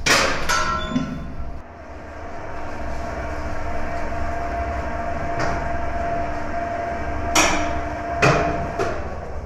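An electric dough kneader's motor running with a steady hum and a faint whine that settles in about two seconds in. It is preceded by a sharp clank with a short ring at the very start, and four sharp knocks come in the second half.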